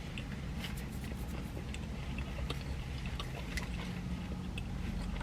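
A person chewing food with the mouth close to the microphone: scattered small wet clicks over a steady low hum.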